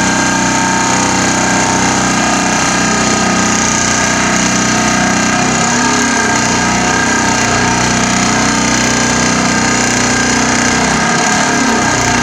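Pile driver driving a steel profile pile into the ground: a loud, steady, unbroken mechanical drone with no separate blows, the noise of the pile going down.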